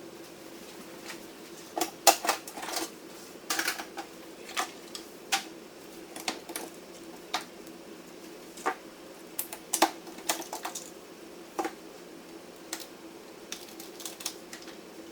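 Irregular clicks and clacks of hands handling a rack server's metal and plastic parts, sped up, over a steady hum.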